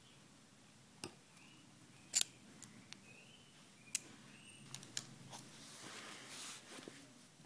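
Irregular sharp clicks and taps of metal pliers working small metal lure parts, the loudest a double click about two seconds in, followed by a brief rustle of handling near the end.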